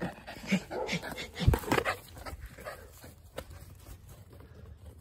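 Dog giving a few short whimpers, mixed with knocks and a loud thump about a second and a half in; quieter after about two seconds.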